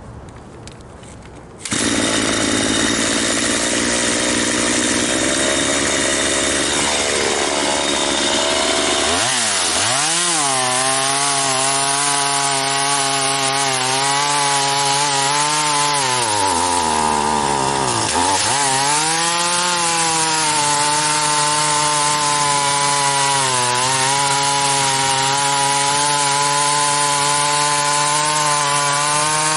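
Poulan 4620 two-stroke chainsaw cutting wood at full throttle, cutting in suddenly about two seconds in. The engine pitch sags and recovers as it bogs down under the load of the cut, dropping deepest about two-thirds of the way through.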